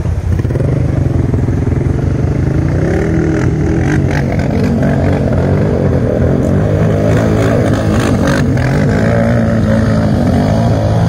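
ATV engine running steadily close by, with an even, low, pitched drone. Water splashing from quads driving through a shallow river comes and goes over it.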